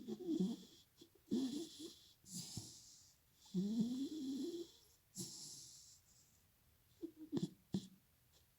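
A dog snoring: a string of separate rasping, breathy snores, the longest rising in pitch about four seconds in, followed by a few short sharp breaths near the end.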